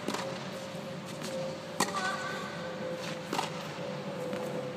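Tennis ball hits in a rally: three sharp cracks of ball on racket and court, about a second and a half apart, the loudest about two seconds in. A steady hum runs underneath.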